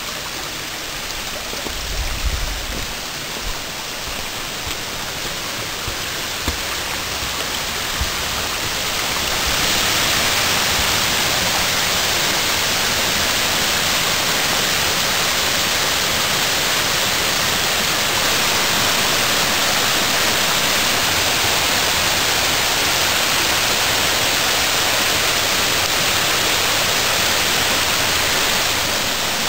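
Rushing water of the Big Seven-spring waterfall, a cascade of about 7.5 m: a steady hiss that grows louder about a third of the way in, then holds. A few low bumps in the first eight seconds.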